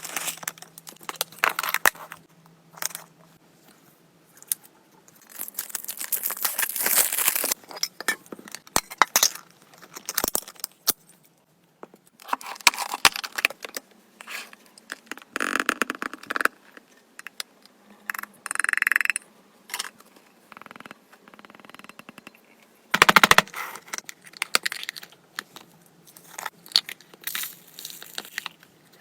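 Packaging being handled and opened: irregular bursts of crinkling and rustling with scrapes and small clicks, the loudest a short sharp burst about two-thirds of the way through.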